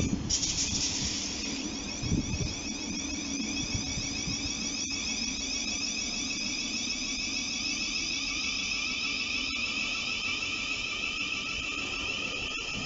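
Thameslink Class 700 electric multiple unit pulling away, its traction equipment giving a loud, high-pitched electric whine of several tones over a lower steady hum.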